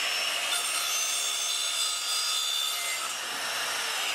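Evolution Rage4 1250 W 185 mm multi-material chop saw running at speed and cutting through PVC pipe: an even motor whine with the blade's rasping cut through the plastic.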